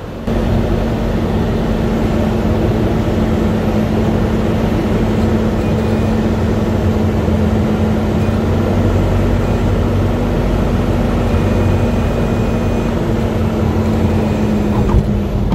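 Robin DR400/180's four-cylinder Lycoming engine and propeller droning steadily at power, heard inside the cockpit through the headset microphone.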